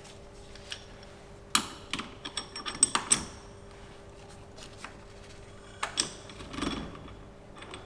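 Metal tools clanking and knocking against a moped engine while the magneto rotor nut is being worked loose: a cluster of sharp metallic strikes about a second and a half in, and another around six seconds in.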